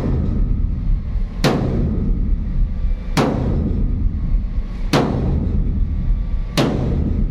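Sledgehammer striking the dented corrugated steel side wall of a shipping container, four heavy blows evenly spaced about a second and a half apart, each ringing briefly, as the damaged panel is beaten back into shape. A steady low rumble runs underneath.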